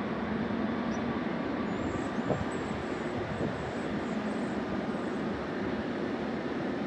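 Distant jet airliner engines on the runway: a steady rushing rumble with a faint low hum.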